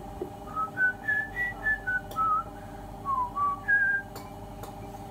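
A person whistling a short tune of about ten quick notes that rise and then fall, over a steady low hum.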